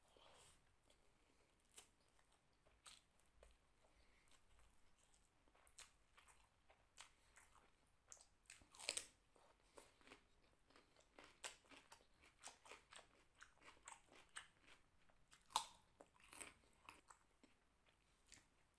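A person chewing and crunching a hand-eaten mouthful of rice, vegetable curry and raw salad close to the microphone: faint, irregular crisp crunches and mouth clicks, with two louder crunches about nine seconds in and near sixteen seconds.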